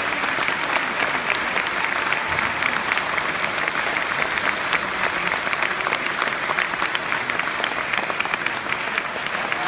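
Theatre audience applauding steadily during a curtain call: many hands clapping at once, a dense, even patter of claps.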